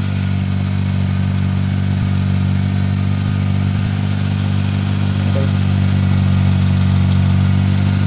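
Suzuki mini pickup's small petrol engine idling steadily after being started, running on its own now that the clogged fuel supply has been dealt with.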